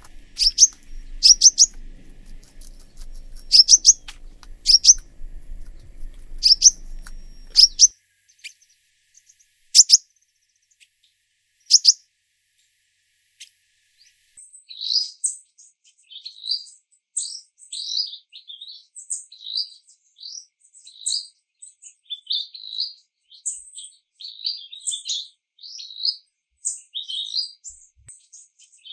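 Small birds chirping: short, sharp, high chirps about once a second at first, then a quicker, continuous twittering from about halfway through.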